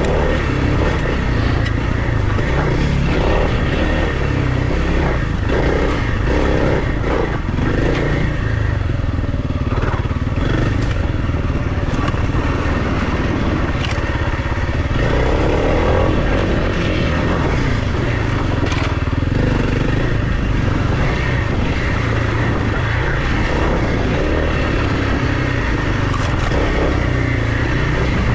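Kawasaki KLX300R dirt bike's single-cylinder four-stroke engine running steadily while riding down a rocky singletrack, with gravel crunching and clattering under the tyres.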